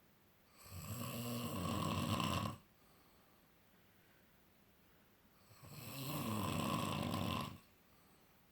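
Snoring: two snores, each about two seconds long, with a pause of about three seconds between them.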